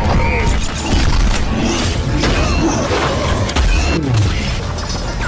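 Loud action-scene soundtrack: music under repeated booms and crashing impacts.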